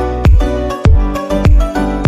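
Electronic background music with a steady beat, a kick drum hitting about every 0.6 seconds under sustained synth notes.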